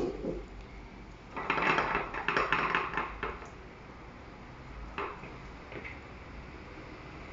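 Glass and metal kitchenware being handled on a counter: a short click, then about two seconds of clinking and scraping, and a single knock about five seconds in.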